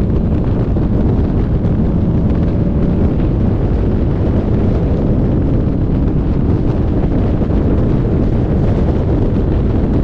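Car driving at speed on a winding road: a steady, loud low rumble of engine and road noise with wind buffeting the microphone.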